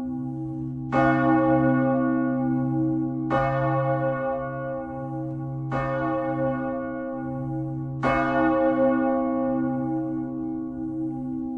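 A swinging church bell rung in full swing, its clapper striking four times about two and a half seconds apart. Each stroke rings on and fades slowly over a steady low hum.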